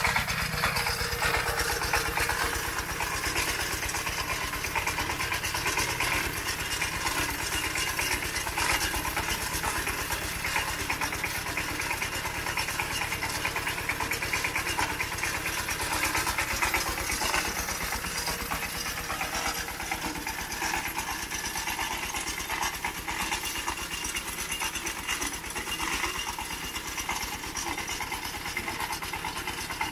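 A small engine idling steadily with a fast, even beat.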